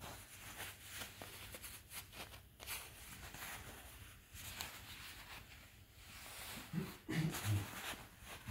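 Silk-covered wool duvet rustling and crinkling as a hand lifts and handles the fabric and its sewn-in label. Near the end come a few short, low, voice-like sounds, each a little lower than the last.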